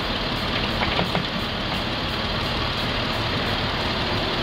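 Jeep Wrangler JK engine idling steadily with a freshly refilled cooling system, running normally with no leaks.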